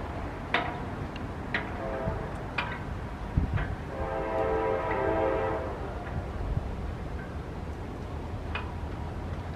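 Locomotive air horn of an approaching Norfolk Southern freight train sounding one long blast about four seconds in, over steady low wind rumble. A grade-crossing bell strikes about once a second.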